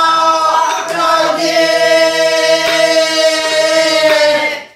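Pansori singing: one long held note that shifts pitch about a second and a half in and fades at the end, with three light strokes of the buk drum's stick under it.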